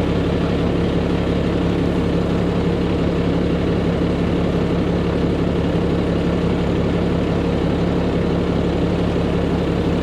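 Ford F-750 dump truck engine idling steadily, heard from inside the cab with the window down.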